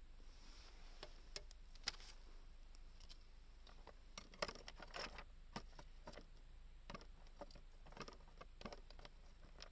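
Faint, irregular clicks and light taps of small objects being handled, over a low steady hum.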